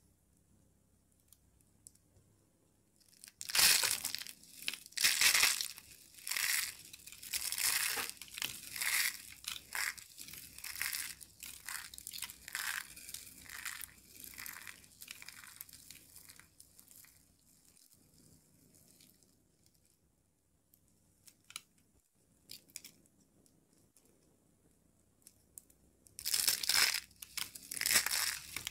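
Dry soap curls crushed and crumbled between the fingers: a dense run of crisp crackling crunches starts about three seconds in and thins out, goes quiet except for a few small clicks, then a fresh burst of crunching comes near the end.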